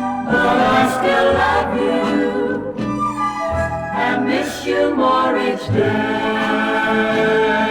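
Early-1960s pop ballad recording: a sister vocal group singing long held notes in close harmony over instrumental backing.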